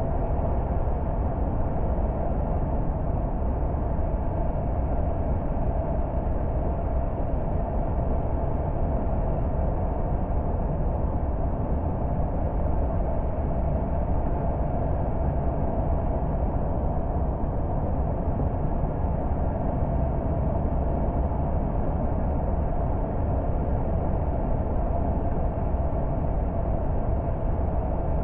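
Car driving along at a steady pace: continuous engine and tyre noise with a low rumble and a steady mid-pitched hum, unchanging throughout.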